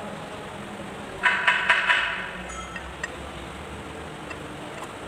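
A quick run of about five sharp metallic clinks, about a second in, from a socket wrench on a long steel extension being worked on the cylinder head of a two-cylinder Kubota Z851 diesel.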